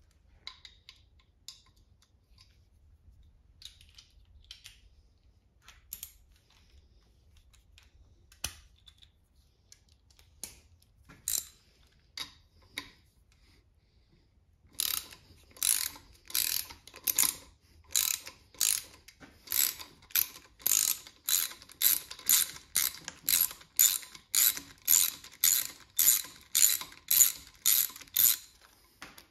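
Ratchet wrench being worked on an engine fastener. For the first half there are only a few scattered clicks and light knocks. Then, about halfway in, comes a steady run of ratcheting strokes, about two a second, growing louder toward the end.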